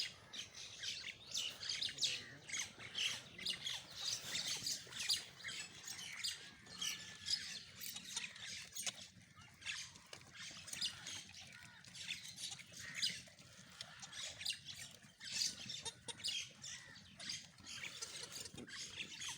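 Many birds chirping and squawking together in a dense, continuous chatter of short, high-pitched calls.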